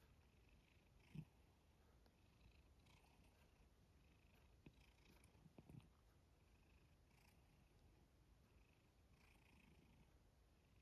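Faint, steady purring of a domestic cat dozing while being stroked, with a few soft clicks about a second in and again near the middle.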